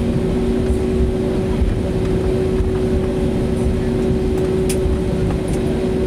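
Steady cabin noise of an Airbus A320neo taxiing after landing: a low rumble under a steady hum from its Pratt & Whitney PW1100G geared turbofans at taxi idle.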